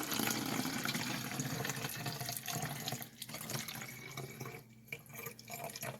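Water pouring into a jug, a steady rushing stream that tapers off about three seconds in, followed by a couple of faint knocks.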